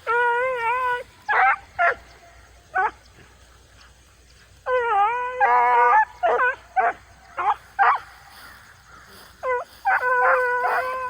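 Rabbit beagles baying on a rabbit's trail: long, wavering bays about a second each mixed with short, sharp barks, several dogs overlapping near the end.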